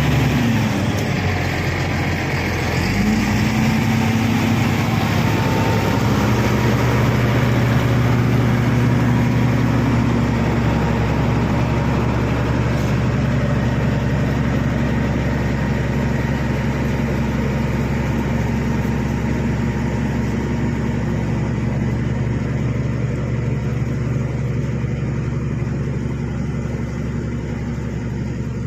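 Diesel engine of a Shantui SD16 crawler bulldozer running under work. Its pitch drops just after the start, picks up again about three seconds in, then holds steady.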